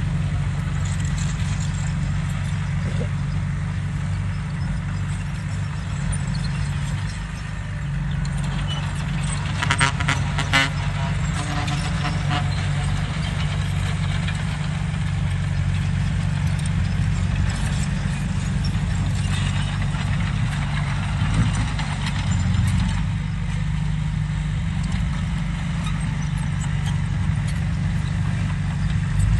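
Excavator's diesel engine running steadily with a deep, even drone, with a brief metallic clatter about ten seconds in.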